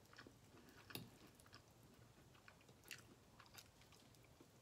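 Faint chewing of someone eating, with a few soft clicks scattered through, the clearest about a second in and around three seconds.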